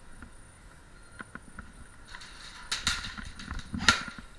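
Rustling with a few sharp cracks, about three, in the second half; the loudest comes near the end.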